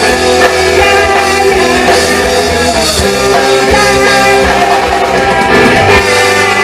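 Live rock band playing an instrumental passage without vocals, drums keeping a steady beat.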